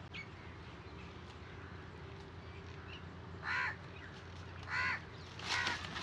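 Crows cawing, four harsh caws from about halfway through, over a low steady background hum.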